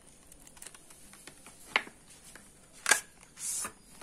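Cardboard eyeshadow-palette box being handled and opened: scattered light ticks, two sharp clicks a little over a second apart, then a brief papery scrape near the end.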